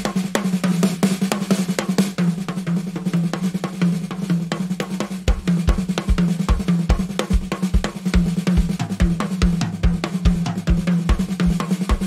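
Drum kit playing a busy pattern of snare, hi-hat and cymbal strokes over a held low note. About five seconds in the bass drum comes in with rapid repeated kicks.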